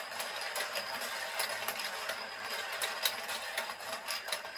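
Battery-powered Penguin Race slide toy running: its plastic escalator stairs clatter steadily as they carry the toy penguins up, with many sharp clicks mixed in.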